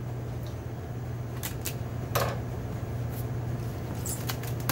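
Hands handling a cardboard box and smoothing packing tape onto it: a few short taps and rubs, the clearest about two seconds in, over a steady low hum of room equipment.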